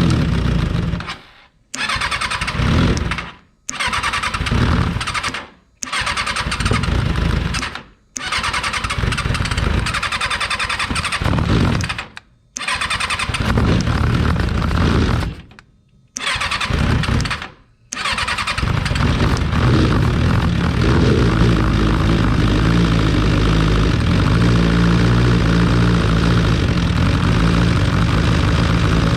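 Rebuilt Kawasaki 636 inline-four motorcycle engine in a micro sprint car being brought to life. It comes in a series of short bursts a couple of seconds long, each cut off suddenly. From about two-thirds of the way in it runs steadily without stopping.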